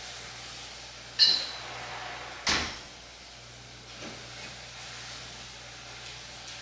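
Kitchen handling sounds: a sharp metallic clink with a brief ringing tone about a second in, then a duller knock, as cookware and items are set down on the counter.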